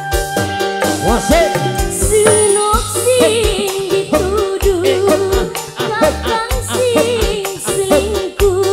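Live tarling dangdut music: a woman sings a wavering, ornamented melody over electronic keyboard organ backing with a steady drum beat and bass. The singing comes in about two seconds in, after an instrumental lead line.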